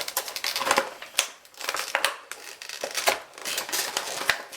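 Plastic packaging crinkling while small model-kit parts are handled, with irregular sharp clicks and knocks throughout.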